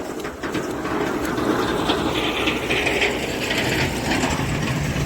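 Snowplow blade scraping ice off the road: a steady rough grinding scrape with a harsh, hissy edge through the middle.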